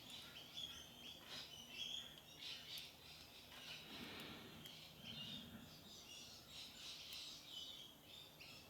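Faint bird chirps over near silence, with a few light clicks.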